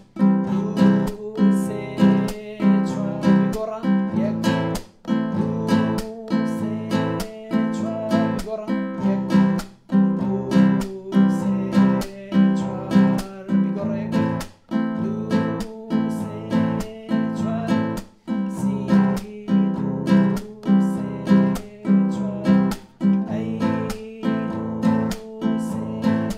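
Nylon-string classical guitar strummed in a steady rhythm, changing back and forth between C major and A minor chords, with a brief dip at each chord change.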